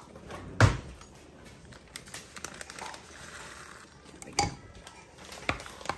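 A sharp knock, then a plastic bag of shredded cheese rustling and crinkling as it is shaken out into a crock pot, with a few light clicks later on.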